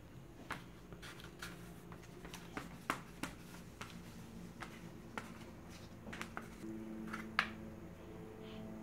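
Scattered light clicks and taps of hands handling paper and oil pastels on a wooden tabletop, over a steady low hum that gets a little louder near the end.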